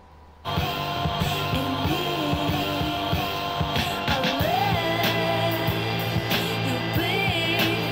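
A song with singing and guitar played back through a small black budget Bluetooth speaker; the music starts again about half a second in after a brief pause.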